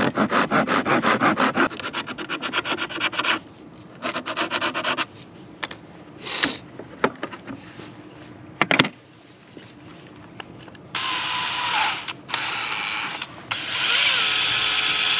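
Handsaw cutting through a small piece of wood in quick, even back-and-forth strokes for the first few seconds, then a shorter second burst of strokes, with a few clicks and knocks after. From about eleven seconds in, a DeWalt cordless drill runs three times with a whirring whine, spinning the wooden piece fitted in its chuck, the last run the longest and loudest.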